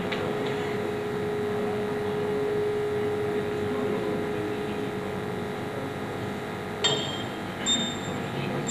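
Soundtrack of a Honda Accord commercial in which the car's parts knock each other into motion, heard through a hall's speakers: a steady hum, then two sharp metallic clinks with a short ring about seven and eight seconds in.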